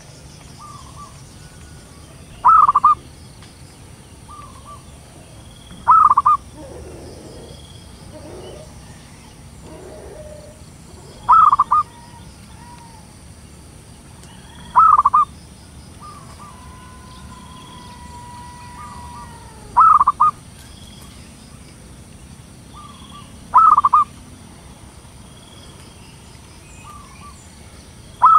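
Female zebra dove calling: seven short, loud trilled coos a few seconds apart, with softer short notes between them. One longer steady whistled tone sounds in the middle.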